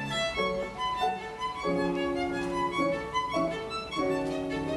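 A bowed string instrument playing a slow melody of long held notes, each changing to the next about every second.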